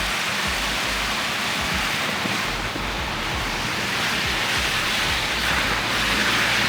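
A steady, loud rushing noise that swells slightly near the end.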